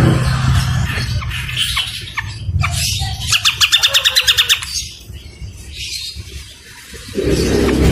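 Cage songbird calls from a bird-song training track, with scattered calls and, in the middle, a fast rattling trill of about a dozen notes at roughly ten a second lasting just over a second. A low steady hum lies under the start and comes back near the end.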